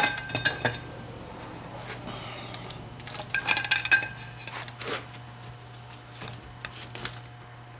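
Metal tools and pump parts clinking and knocking on a workbench, with a burst of ringing metallic clinks about three and a half seconds in. A steady low hum runs underneath.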